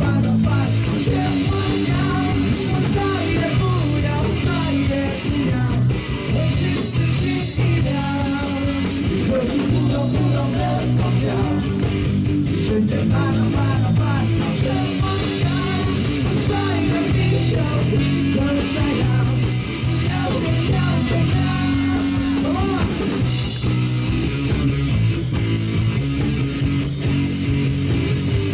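Live rock band playing a song between sung verses: electric guitar lines over bass and a drum kit with steady cymbal beats.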